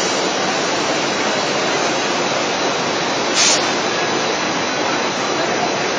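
Steady running noise of a lab cast film extrusion and film stretching (MDO) line in operation, with a short hiss about three and a half seconds in.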